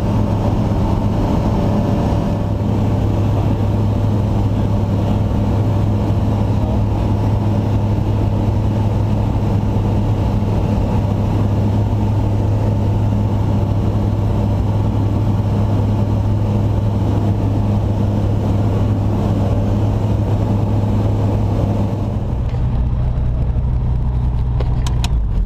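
Light aircraft's piston engine and propeller running steadily at low power. About 22 s in it drops to a lower pitch, and near the end it cuts off: the engine is being shut down.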